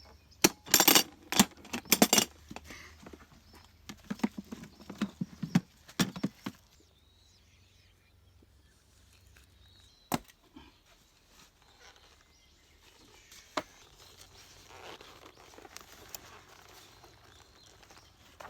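A run of sharp, hollow knocks and clatter, like hard objects being handled and set down, loud for the first six seconds or so, then only a few single clicks and a faint hiss.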